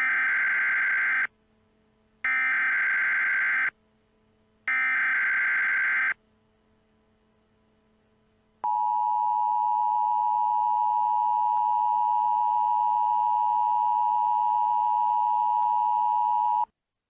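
Emergency Alert System opening: three bursts of SAME digital header tones, each about a second and a half long with a second's gap between them, then the steady two-tone EAS attention signal held for about eight seconds before cutting off suddenly. The tones mark the start of an emergency broadcast alert.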